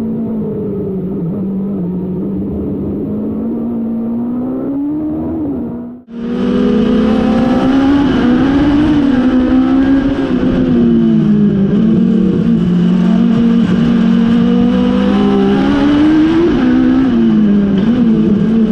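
In-car sound of Legends race cars' Yamaha four-cylinder motorcycle engines at racing speed, the engine note rising and falling with throttle and gear changes. About six seconds in, the sound cuts to a second car's engine, which is louder.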